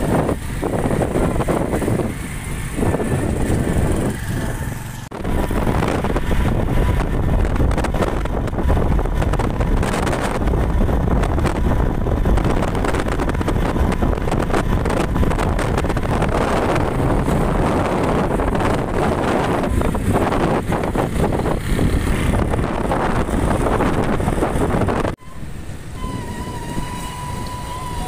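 Wind buffeting the microphone while riding in the open along a road, mixed with vehicle engine and traffic noise. Near the end it cuts abruptly to quieter street sound with a steady high tone.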